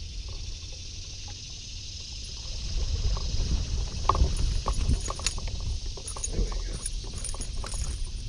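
Wind buffeting the microphone while a fish is fought and landed from a boat deck. From about four seconds in it is overlaid with scattered clicks and knocks from rod, reel and handling.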